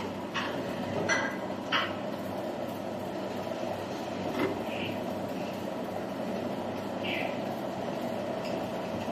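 Industrial machinery running with a steady mechanical hum, with a few sharp knocks in the first two seconds and another about four seconds in, and short high chirps now and then.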